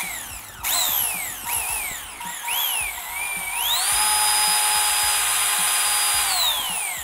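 HPI Sprint 2 Drift RC car's electric motor and belt drivetrain whining as the throttle is blipped with the car held off the ground. Several short revs rise and fall, then one long rev holds a steady high whine for about three seconds before winding down near the end.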